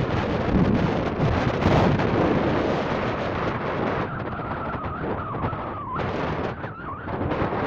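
Gusty wind buffeting the microphone, a steady rushing noise heaviest in the lows. From about four seconds in, a faint wavering whine rides over it, dipping in pitch twice near the end.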